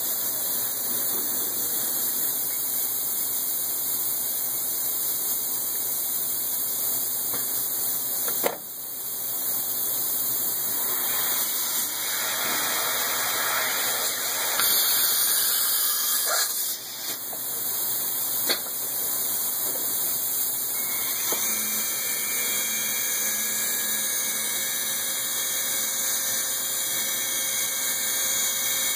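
Machine tool running steadily with a high hiss while machining metal for an Oldham coupling, with a few sharp clicks, the first about eight seconds in.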